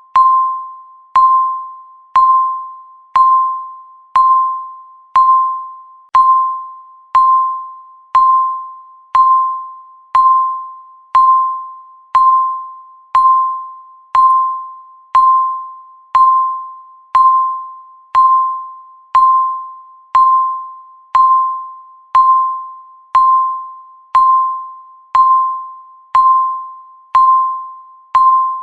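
Countdown timer beep sound effect: one electronic ding on the same pitch, struck about once a second, each one sharp and fading away before the next.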